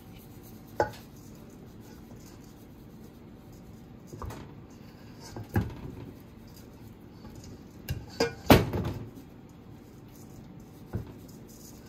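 Kitchen clatter of dishes and utensils being handled and set down: several separate knocks and clinks, with the loudest cluster about two-thirds of the way through.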